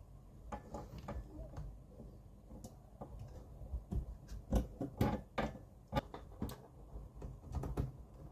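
Irregular light clicks, taps and knocks as a motherboard is set into a Fractal Terra PC case and shifted into alignment. The sharpest knocks cluster around the middle.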